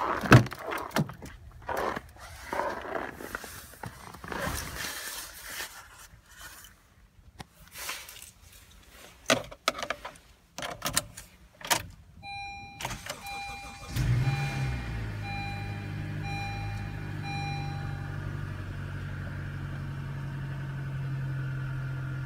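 Clicks, knocks and rustling as the key fob unlocks the car, the driver's door opens and someone climbs in. About 12 s in a dashboard chime starts, beeping about once a second, and two seconds later the 2017 Honda CR-V's 2.4-litre four-cylinder engine cranks and catches on a 7°F cold start. It flares briefly, then settles into a steady idle.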